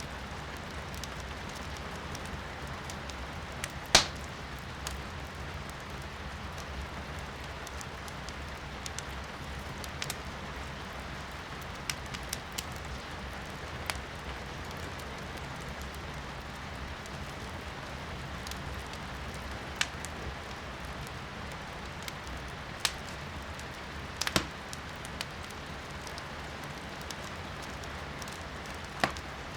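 Firewood crackling in a fireplace, with sharp pops scattered through, the loudest about four seconds in, over a steady hiss of rain heard from inside the room.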